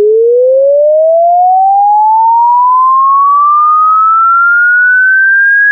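Electronic sine-tone sweep: a single loud, pure tone sliding smoothly and steadily upward in pitch.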